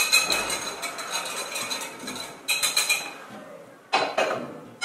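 Wire whisk stirring dry flour in a glass mixing bowl, its wires clinking quickly against the glass in two short runs. There is a single louder knock near the end.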